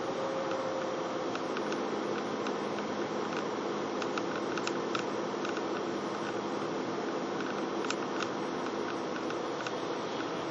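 Steady road and engine noise of a moving car heard from inside, an even hiss with a faint low hum and scattered light ticks.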